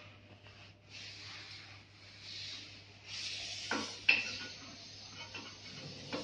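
Hands handling metal fittings on a printer carriage: irregular rubbing and scraping, a knock, then a sharp metallic click with a brief ring about four seconds in.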